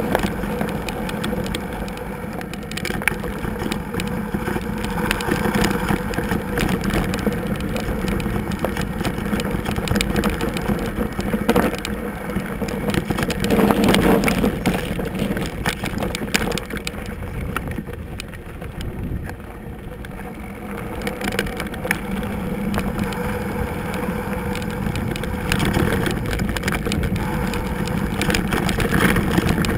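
Maxx Huraxdax fat bike riding a loose gravel track: tyres crunching over stones and the bike rattling and jolting over the rough surface, with a continuous rush of riding noise. It is loudest about 14 seconds in and again near the end.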